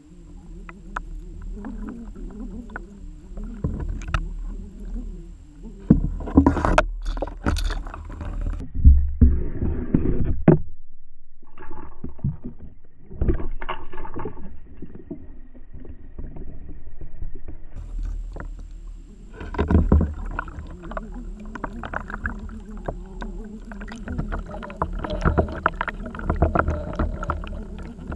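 Underwater sound picked up by a camera in the water as swimbait lures are pulled past: a low rumble of moving water with many short clicks and knocks, loudest about six to ten seconds in and again in the last third.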